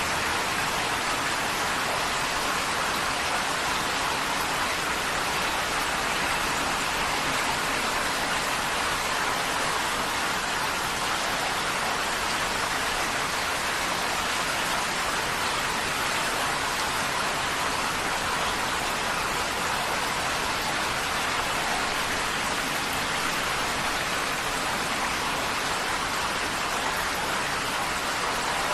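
Heavy rain drumming steadily on a tin roof, a dense, even patter with no let-up.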